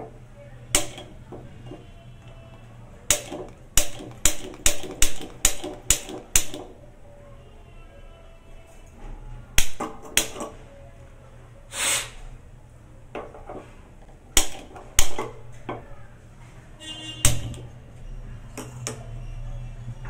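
Piezo spark gas lighter clicking at a gas stove burner to light it: a single click, then a quick run of about seven clicks, then scattered clicks and a short rattle of sparks. A soft steady hiss of the gas burner comes in near the end as it burns.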